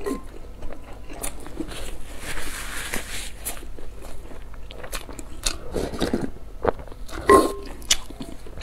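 Close-miked eating sounds: crunchy bites into a crispy fried dumpling and wet chewing, with sharp clicks of crunching throughout and the loudest bite about seven seconds in.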